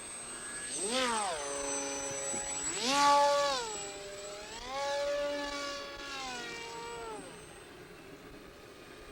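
Remote-controlled Wild Hawk model plane's motor whining in flight. Its pitch swings up and down three times: a brief rise about a second in, a sharper and louder one about three seconds in, and a longer held high stretch around five to seven seconds. It then fades near the end.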